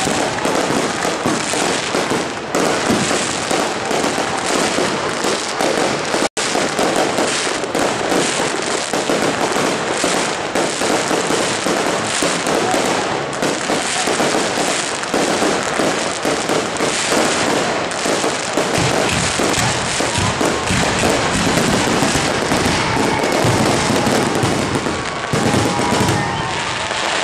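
Fireworks display: aerial shells bursting one after another in a dense, continuous barrage of bangs and crackling.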